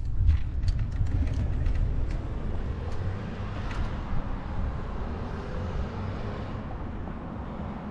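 Low rumble of wind on the camera microphone with road traffic at a junction, easing after about four seconds as the camera comes to a stop. A few light clicks in the first two seconds.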